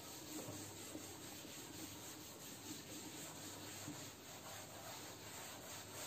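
Faint, steady rubbing of a board duster wiping chalk writing off a chalkboard.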